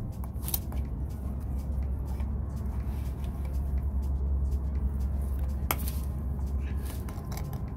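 A few sharp clicks and light scrapes of a plastic filter-removal tool and fingers working in a DEF pump filter housing, trying to draw out the old filter, over a steady low rumble.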